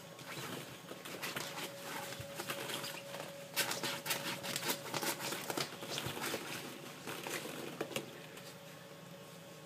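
Hollow plastic ball-pit balls clattering and rustling as a Shetland sheepdog puppy digs and rolls among them: a quick run of light clicks, busiest from about three to six seconds in.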